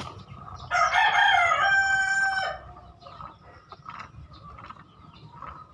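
A rooster crowing once, a call about two seconds long that starts under a second in.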